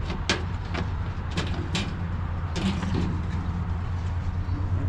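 A steady low mechanical hum, with about half a dozen sharp clicks and knocks over it.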